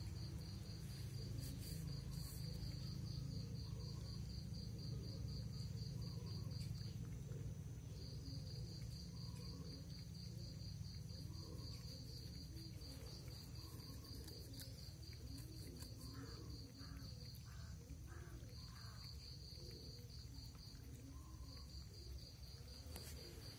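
An insect trilling steadily in a fast pulsed chirp, with two short pauses about seven and seventeen seconds in, over a faint low steady hum.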